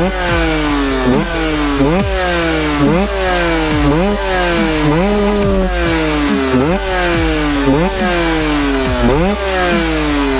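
HM motorcycle engine through an FMF Powercore exhaust, revved hard in quick throttle bursts about once a second, the pitch jumping up sharply and then falling away as the throttle is rolled off.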